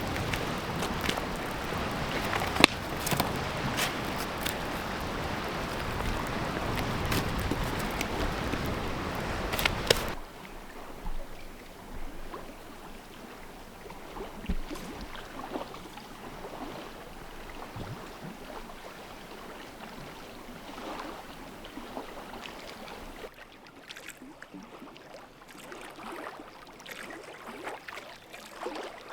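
Wind-driven lake waves lapping and splashing against the shore, loudest in the first ten seconds with many sharp splashes and knocks, then softer.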